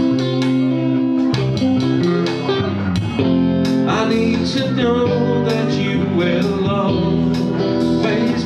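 Electric guitar and bass guitar playing a song live, with a man singing into a microphone from about four seconds in.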